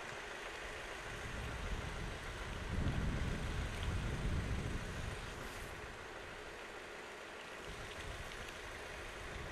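Steady outdoor background hiss with a low rumble that swells and fades over about four seconds in the middle.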